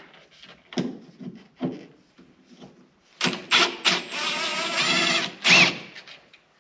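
A few light clicks and knocks of work on a car dash. Then a cordless drill-driver whirs for over a second, its pitch rising slightly, as it spins out a dash screw, followed by a short second whir.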